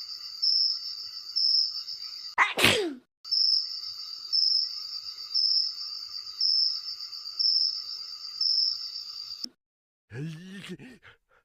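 A single loud human sneeze about two and a half seconds in, its pitch falling, over a steady high chirping that pulses about once a second. The chirping stops about nine and a half seconds in, and after a short silence a voice groans near the end.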